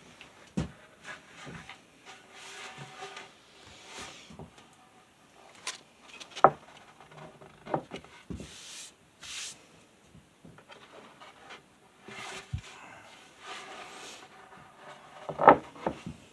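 A wooden cutting board being handled on a workbench: scattered knocks of wood on wood, the loudest about six and a half seconds in and near the end, with two stretches of rubbing across its surface.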